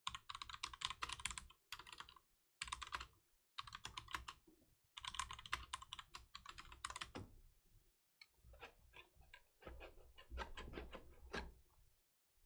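Typing on a computer keyboard: quick runs of keystrokes in bursts with short pauses between them, the keystrokes softer over the last few seconds.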